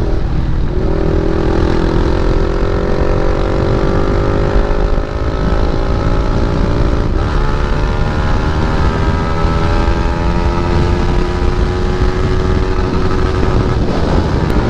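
KTM Duke 250's single-cylinder engine through an aftermarket Akrapovic exhaust, pulling under acceleration on the road. Its pitch climbs steadily, shifts at a gear change about halfway, then climbs again.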